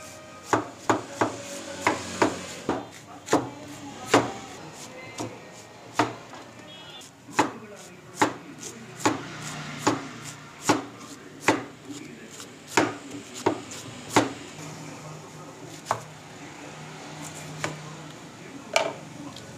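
Large kitchen knife chopping cabbage on a wooden cutting board: a sharp knock of the blade on the board roughly every half second to second. Near the end the knocks come more sparsely as a red onion is sliced.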